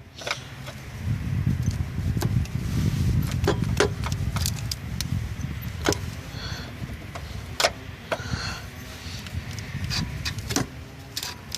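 Scattered sharp metal clicks and knocks over a low rumble, as a loosened bolt is worked free by hand in a car's engine bay.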